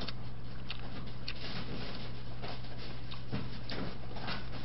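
Hands pulling apart a whole boiled chicken: scattered soft, wet clicks and crackles of meat and skin tearing, over a steady low electrical hum.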